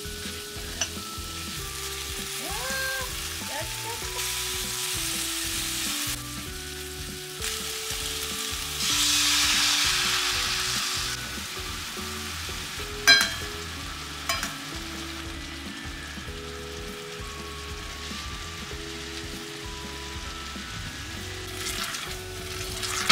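Salmon fillets sizzling steadily in hot oil in a stainless steel frying pan. The sizzling grows louder for about two seconds near the middle as the teriyaki sauce goes into the pan. Two sharp knocks come a little after, about thirteen and fourteen seconds in.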